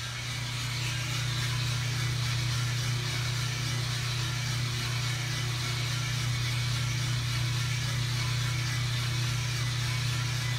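US Roaster Corp 3-kilo drum coffee roaster running mid-roast, its drum motor and exhaust fan giving a steady low hum with an even hiss above it. The sound swells slightly in the first second, then holds constant, with no cracks yet.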